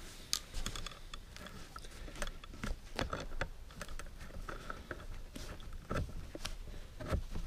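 Hands working on an umbrella's metal rib: irregular small clicks, taps and crackles, with the nylon canopy rustling.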